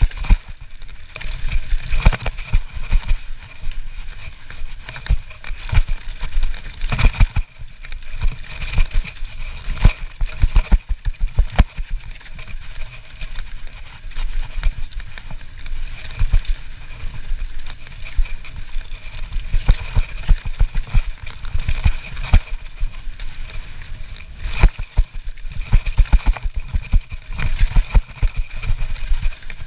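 Trek Slash full-suspension mountain bike riding fast down a rough dirt trail: tyres rumbling over dirt and leaves, with frequent sharp clacks and rattles from the bike over bumps and roots.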